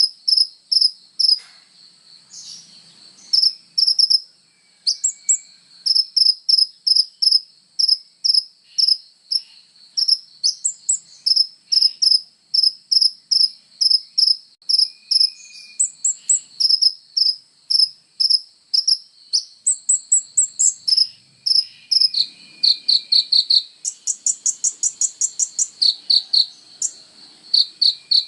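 Kolibri ninja (a sunbird) singing: a long run of short, high, sharp chirps about two a second, breaking into faster trills in the last few seconds.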